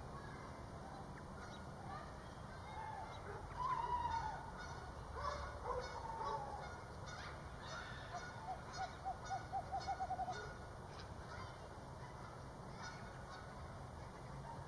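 Screech owl giving a series of about ten short hoots that speed up toward the end, about two-thirds of the way through. Earlier, a few louder calls of another bird, the loudest about four seconds in.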